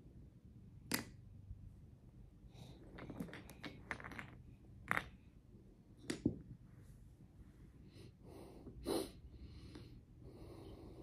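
Toy alphabet blocks clicking and knocking together as a toddler stacks them into a tower: faint, scattered light knocks with a few sharper clacks.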